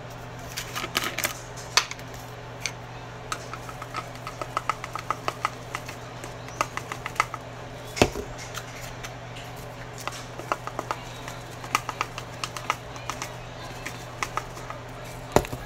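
Light clicks and taps of a plastic seasoning jar and its lid being handled while seasoning goes into the rice cooker pot. There is a run of quick ticks a few seconds in, a sharper knock about halfway through and another near the end, over a steady low hum.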